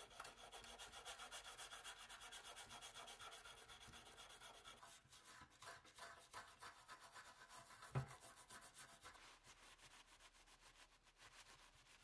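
Toothbrush scrubbing a wet, rusty Zippo lighter insert: quick back-and-forth bristle strokes, about six a second. A single knock about eight seconds in.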